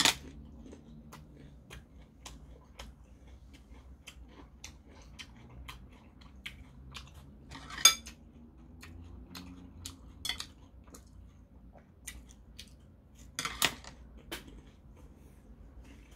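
Metal chopsticks clicking and tapping against dishes during a meal, as scattered light clicks. Three sharper clinks stand out: one at the start, one about eight seconds in, and a double one near fourteen seconds.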